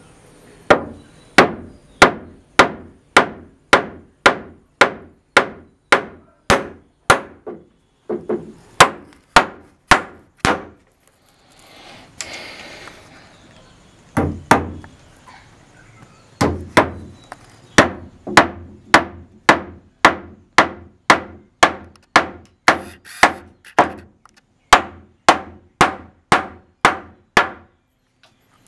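Hammer striking the fixings of a metal door hinge on a wooden door frame: a steady run of sharp strikes, about two a second, with a pause of about three seconds midway.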